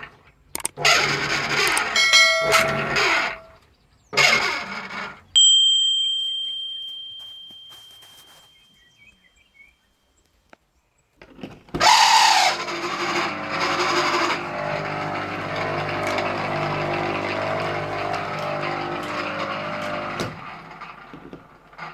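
Self-priming pool pump (Electrim PL-75) electric motor starting about halfway through and running steadily with a harsh, noisy hum for about eight seconds before it stops. This is the noise the owner blames on the motor's bearings. Earlier come a few short noisy bursts and a single bell-like ding that rings out and fades over several seconds.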